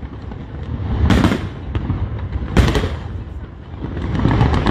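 Fireworks bursting overhead: two sharp booms, about a second and two and a half seconds in, then a thickening crackle of many small pops near the end.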